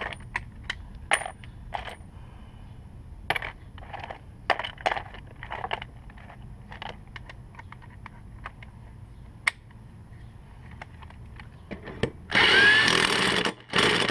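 Metal tools and parts clinking and knocking, then a handheld power driver running in two bursts of about a second each near the end, tightening the mower blade back on.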